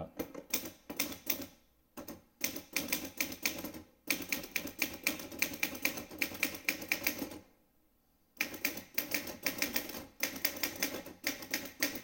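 Underwood 450 manual portable typewriter, built on the Olivetti Lettera 32 mechanism, being typed on briskly: rapid runs of type-bar strikes, several a second, with short pauses about two seconds in and again near eight seconds.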